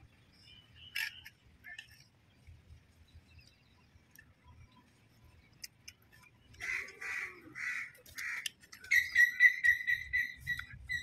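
Bird calling: four harsh calls in quick succession, then a fast run of repeated chirping notes near the end.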